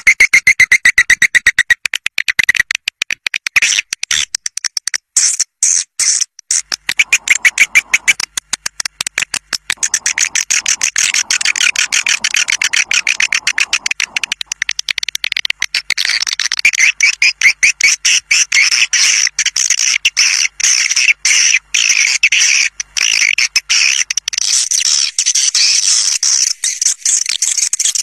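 Swiftlet caller sound: a dense, rapid chattering of high twittering chirps and clicks from a flock of swiftlets, the call used to lure swiftlets into a nest house. It gets denser and fuller about halfway through.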